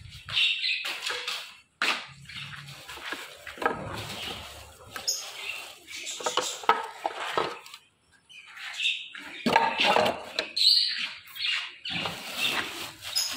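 Small cage birds chirping in short irregular calls, mixed with handling noises; near the end a plastic bag rustles as it is handled.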